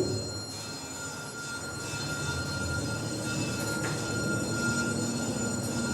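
Machine-room-less passenger lift car travelling between floors: a thump at the very start, then a steady running hum with a thin high whine from the drive.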